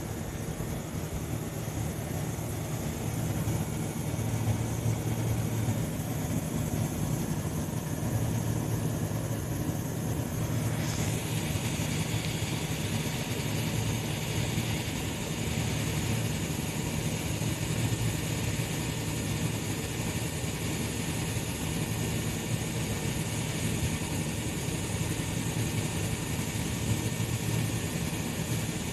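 Tobu 350 series electric train giving off a steady low hum, with a higher hiss that comes in about eleven seconds in and stays.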